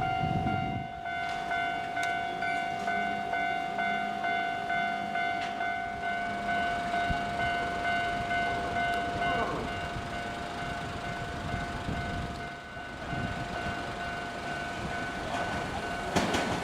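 Japanese level-crossing warning bell sounding its steady electronic "kan-kan" alarm, starting right at the opening. Near the end the rumble and wheel clatter of an approaching Keio 1000 series electric train rise in.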